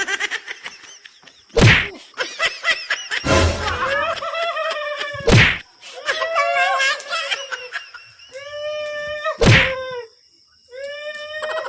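Four loud whacks or slaps, with high-pitched drawn-out cries between them.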